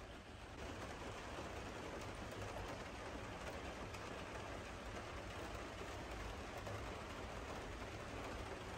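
Steady rain: an even hiss with a low rumble underneath, growing slightly louder about half a second in.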